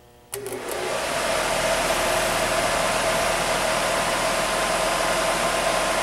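RV furnace blower, a 12-volt DC motor with a new blower wheel, spins up about a third of a second in with a couple of clicks as the ground lead touches the battery. It then runs steadily: an even rush of air with a steady hum.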